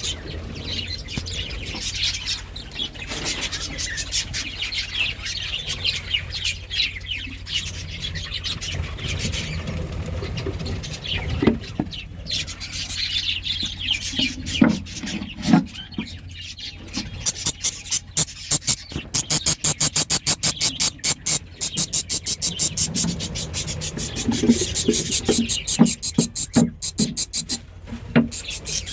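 Budgerigars chirping and chattering. Midway through comes a run of rapid, evenly spaced clicks, several a second, over a steady low hum.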